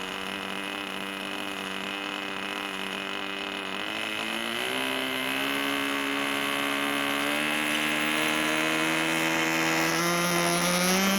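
Small glow-fuel model aeroplane engine running at high revs with a buzzing, evenly pitched note. Its pitch steps up about four seconds in and again near the end, and it grows louder.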